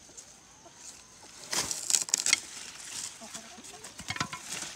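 Long-handled pruning loppers cutting through a sugar cane stalk near its base: a quick cluster of sharp snaps and cracks about two seconds in, with rustling cane leaves, and a few more clicks near the end.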